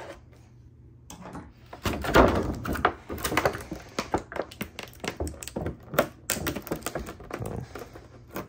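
Clear plastic blister tray being flexed and handled, crinkling in a dense run of crackles and sharp clicks that starts about a second in, as small knife accessories are worked loose from it.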